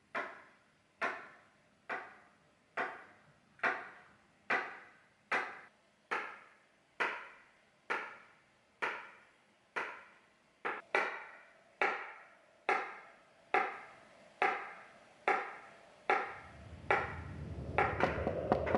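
Slow, evenly spaced woody knocks, about one a second, each ringing briefly. About sixteen seconds in, a low drone swells in beneath them and the knocks come quicker.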